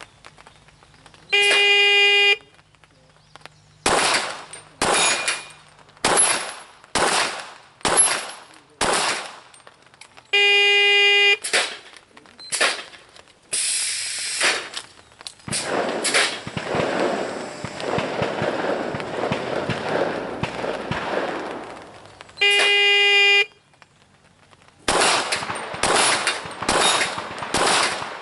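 Three runs of pistol fire at AR500 steel plates. Each run starts with a shot timer's long electronic start beep, followed by five or six sharp pistol shots about a second apart. A long stretch of dense crackling noise fills the middle.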